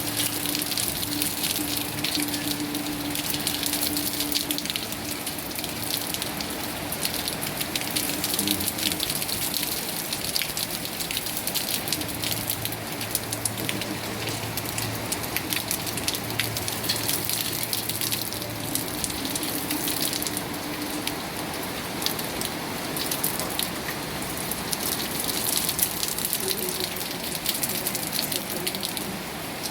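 Steady rain falling, a dense even patter of raindrops hitting surfaces.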